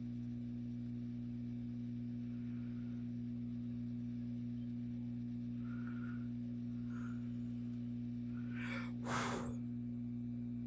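Steady low electrical hum, with a short breathy puff of air about nine seconds in.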